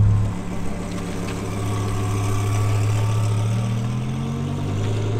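Twin-turbocharged Audi R8's 5.2-litre V10 running at low speed as the car pulls away and rolls off. The engine note holds steady, then rises gently in pitch near the end.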